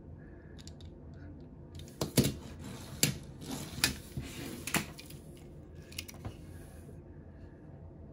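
Small die-cast toy cars being handled: about half a dozen sharp clicks and clacks of the metal cars knocking together and being set down, with light rustling between them.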